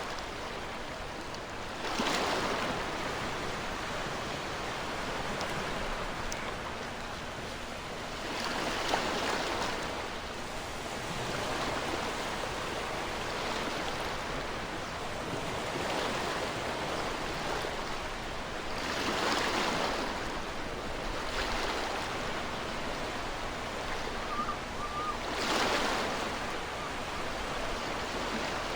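Ocean surf breaking on a shore: a steady wash of water with a louder wave surging in every several seconds.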